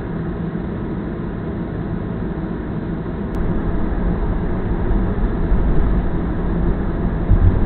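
Car interior noise heard from inside the cabin: a low, steady rumble of engine and tyres on the road, getting louder about three seconds in as the car is moving.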